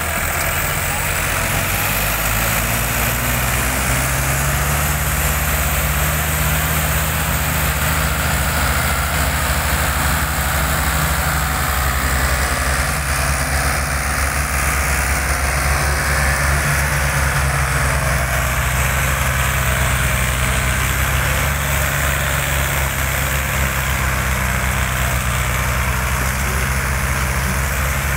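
Tractor diesel engine working hard under heavy load, hauling an overloaded sugarcane trolley. Its steady running note rises in pitch about two to four seconds in, then holds.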